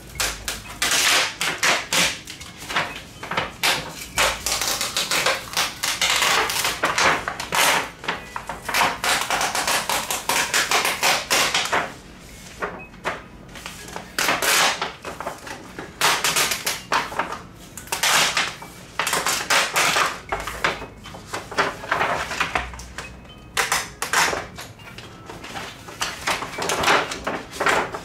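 Thin white reflector sheet of a TV's LED backlight panel being peeled slowly up, the tape holding it down pulling loose with sharp crackling and the sheet crinkling, in runs with short pauses between.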